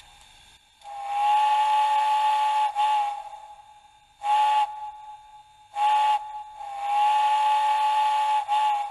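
Sampled multi-chime steam locomotive whistle from a Soundtraxx Tsunami 2 'Big Steam' sound decoder, played through a small iPhone 4 speaker in an HO model. It gives a long blast, two short toots and a second long blast.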